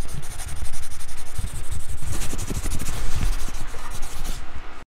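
Logo-intro sound effect: a loud, continuous rushing, scraping noise with low rumbles, cutting off abruptly just before the end.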